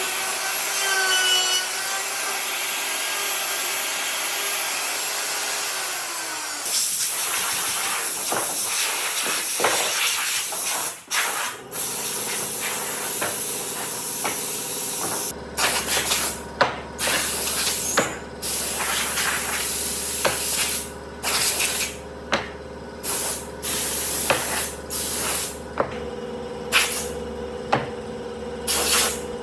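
Workshop tool noise: a steady hiss for several seconds, then a run of short hissing bursts with brief pauses between them.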